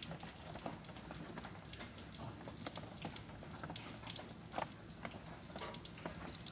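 Faint handling noise: scattered light clicks and rubbing as hands turn a curved khnay tusk amulet over a plate.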